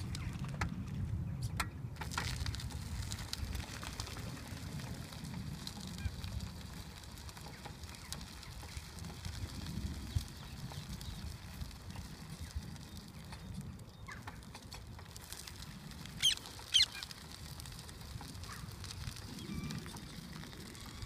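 Two short goose honks close together about three-quarters of the way through, over a steady low rumble from a powered wheelchair rolling along a gravel path.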